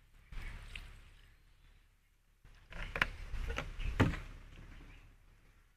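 Plastic bottle of fish sauce being handled: a short pour onto raw meat in a plastic basin, then a run of sharp clicks and knocks, the loudest two a second apart, as the bottle is taken away and set down.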